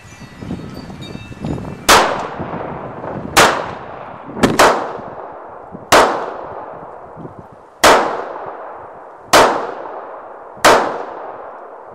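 A string of shots from a Makarov P-64 pistol in 9x18mm Makarov, fired roughly every one to two seconds, two of them close together near the middle. Each shot is sharp and followed by a long ringing decay.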